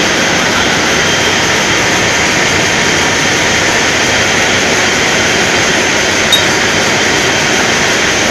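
A motor-driven valve lapping machine running steadily as it laps a valve into its seat in a cylinder head. The noise is loud and even, with no clear pitch, and there is one small click about six seconds in.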